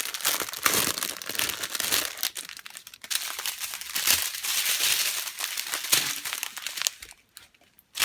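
Plastic packaging of a diamond painting kit crinkling and rustling as it is handled, easing off near the end.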